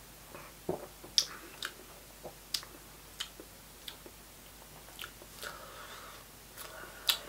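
A person tasting a mouthful of lager: a swallow near the start, then a string of sharp, wet lip smacks and tongue clicks, irregular, about one a second.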